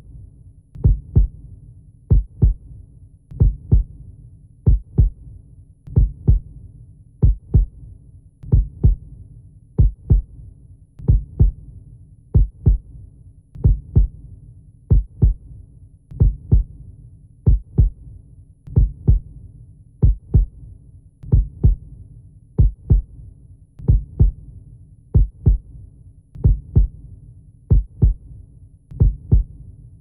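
Slow, steady heartbeat: paired low thumps, lub-dub, repeating about once every second and a quarter over a faint low hum.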